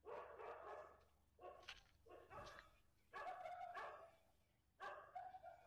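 Faint dog barking: a bark or short run of barks every second or so, some of them drawn out.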